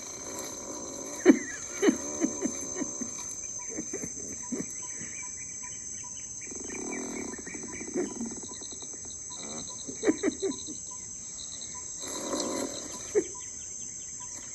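Animal farts: a series of short, sharp blasts, some in quick runs of two or three, from animals that live in a semi-permanent state of flatulence from their heavy diet. A steady high chorus of insects runs underneath.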